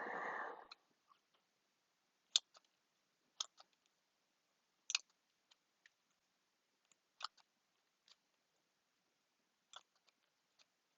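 Scissors snipping out small pieces: single sharp cuts every second or two, after a short rustle at the start.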